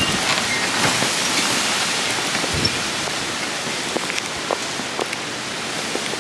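Steady thunderstorm rain falling, with scattered individual drops striking a nearby surface as short clicks.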